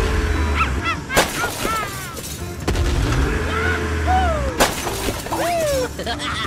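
Cartoon crash sound effects: two sharp smashes, about a second in and again near four and a half seconds, as toy blocks shatter. They play over background music with sliding, whistle-like tones.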